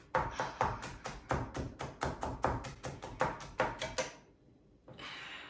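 Kitchen knife chopping an onion on a cutting board: a quick, even run of knocks, about three to four a second, that stops about four seconds in.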